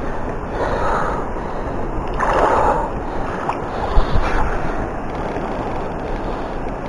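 Steady rushing noise of wind on the microphone over flowing river water, swelling a few times, with one sharp knock about four seconds in.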